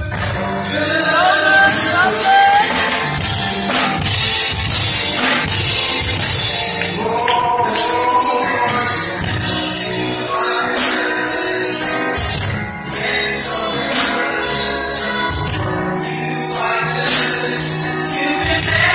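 Live gospel praise music: a small vocal group singing over keyboard and drum kit.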